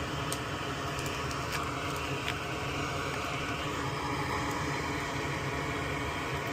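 Steady whir and hiss of a fan running at the workbench, with a low hum under it. A few faint light clicks in the first couple of seconds, like small parts or tools being handled.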